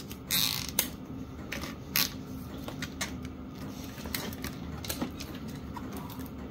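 Nylon zip ties being pulled tight, with a short ratcheting zip just after the start, followed by scattered small clicks and taps as the ties and rubber strip are handled.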